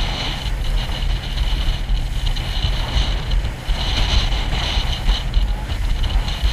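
Small motorboat underway: wind buffets the microphone over a steady low engine hum and the rush of water.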